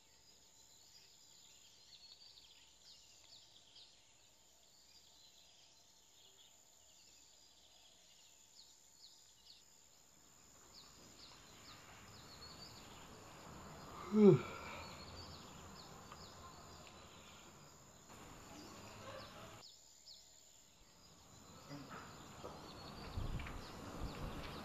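Faint outdoor ambience with small high chirps repeating through the first half. About fourteen seconds in comes one short, louder sound whose pitch falls steeply, and near the end there are a few low knocks.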